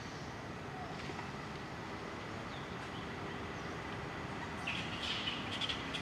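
Forest ambience: a steady hiss with a faint, steady high tone, and bird chirps that start near the end.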